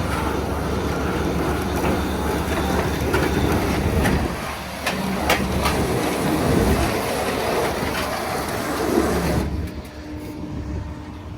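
Snowcat running while its steel tracks clank and rattle on a steel trailer deck during loading, with a few sharp metal knocks around the middle. About nine and a half seconds in the clatter drops away, leaving a quieter steady hum.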